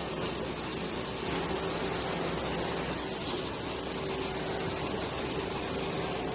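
CNC glass-processing machine running: a steady mechanical rushing noise with a faint steady hum under it.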